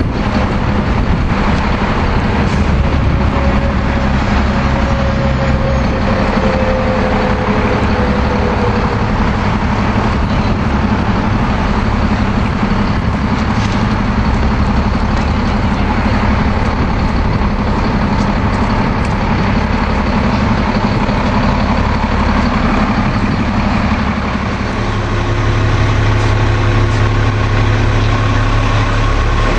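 City transit bus diesel engines idling close by, a steady low rumble. A faint falling whine comes a few seconds in, and about 25 s in the engine note shifts to a deeper, steadier hum.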